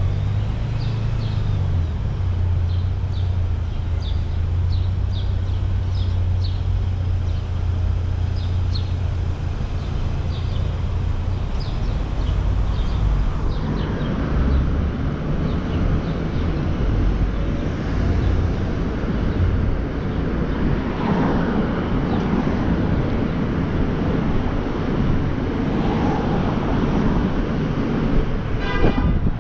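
Car driving in city traffic: a steady low road and engine rumble, growing louder and fuller about halfway through. A run of light ticks sounds in the first half, and a single sharp click comes near the end.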